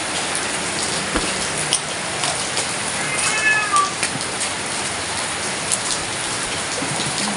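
Heavy rain falling steadily, with scattered drip ticks. A cat meows once, a short call falling in pitch, about three seconds in.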